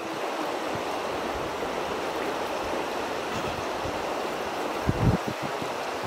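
Steady rushing noise of river water with wind on the microphone, and a few short low thumps about five seconds in.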